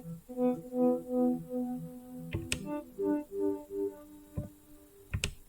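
Sci-fi synthesizer patch from the Rast Sound Sounds of Mars plugin playing a pulsing, repeated note, about three pulses a second, that shifts to a new pitch about halfway through. Two sharp clicks cut in, once midway and once near the end.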